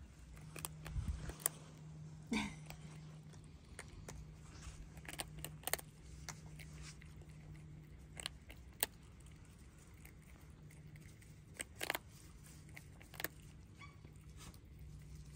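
Prairie dog gnawing a monkey biscuit held in its paws: faint, irregular crunching clicks over a low steady hum.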